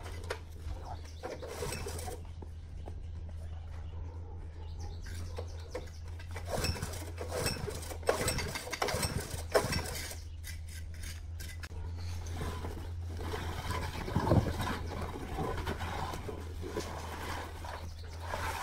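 Scattered metal clanks and knocks from handling a Mikasa MVH-10 plate compactor whose engine won't start, with the loudest knocks about eight, nine and a half and fourteen seconds in, over a steady low hum.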